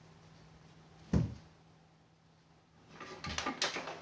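A single sharp knock on the plywood speaker enclosure about a second in, followed near the end by a run of small clicks and rustling as hands work inside the box.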